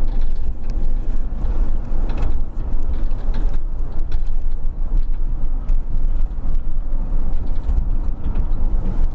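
Cabin noise inside a moving van: a steady, loud, low rumble of engine and tyres on the road, with a few light rattles.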